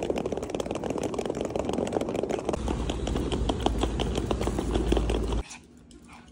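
Small wheels of a rolling pet-carrier trolley rattling over brick paving stones, a dense clatter over a rumble. A deeper rumble joins about two and a half seconds in, and the clatter cuts off suddenly near the end.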